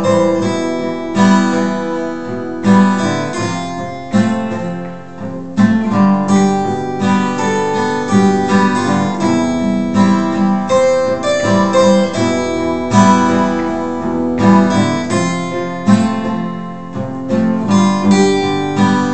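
Two acoustic guitars playing the closing instrumental bars of a song, chords strummed and picked in a steady rhythm with no singing.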